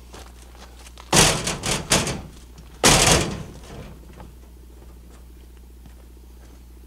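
Dry dead wood being handled for firewood: two loud bursts of cracking and knocking, one about a second in with several sharp strikes and a shorter one about three seconds in.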